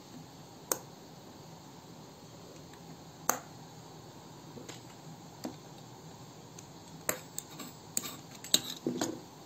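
Sharp clicks and taps of a pizza-cutter wheel on a wooden board as it is run through a sheet of dough, a few at a time, with a quicker cluster of taps and handling noise near the end.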